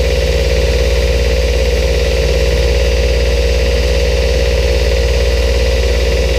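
Belt grinder running steadily, its motor giving a constant low hum under an even whir.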